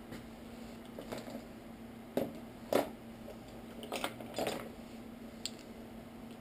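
Small metal tools and parts being handled on a workbench: a handful of short clinks and knocks, the loudest just under three seconds in and a sharp little click near the end, over a steady low hum.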